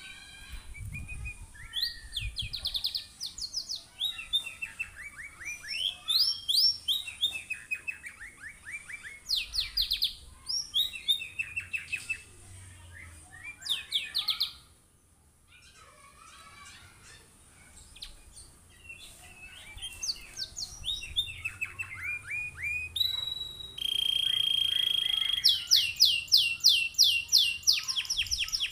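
Domestic canary singing: phrases of fast repeated trilled notes sweeping up and down, with a short pause just after halfway. Near the end it holds one steady whistled note, then goes into a very rapid rolling trill.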